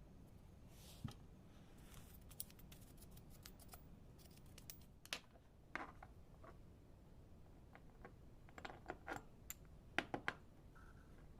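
Faint, scattered clicks and light taps from coffee grinder parts being handled, with a quick cluster of sharper clicks near the end.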